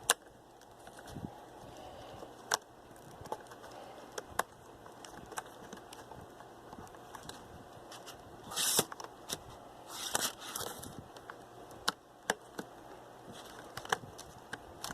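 Light clicks and ticks from handling a laptop keyboard and fitting its ribbon cable into the connector slot, with two short scraping rustles a little past halfway.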